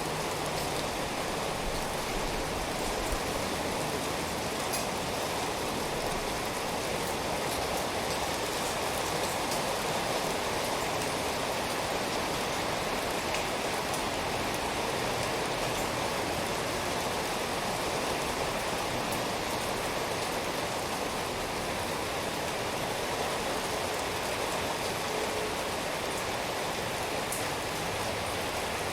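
Steady rain falling, an even rushing hiss with faint scattered drop ticks.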